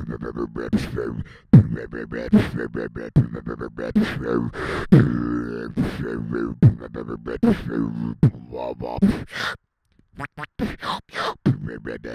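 Solo beatboxing into a handheld microphone: a dubstep-style drop of pitched vocal-bass wobbles cut through by sharp snare and hi-hat clicks in a fast rhythm. The beat stops dead for about half a second roughly ten seconds in, then comes back with rapid clicks.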